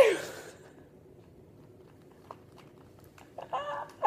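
A woman's short cry falling in pitch at the very start, then a quiet room with one faint tick about two seconds in, and a brief high vocal sound near the end.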